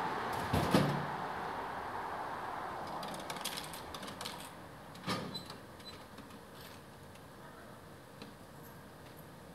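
A Coca-Cola can drops into a street vending machine's dispenser with a sharp knock and thud under a second in. Light clicks follow from about three seconds in, and a second clunk at about five seconds as the can is taken out through the dispenser flap. A passing car fades out at the start.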